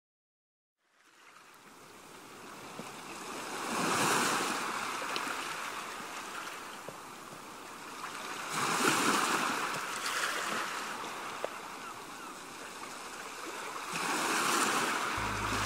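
Ocean surf: waves wash in and draw back in three swells about five seconds apart, fading up from silence in the first second or two.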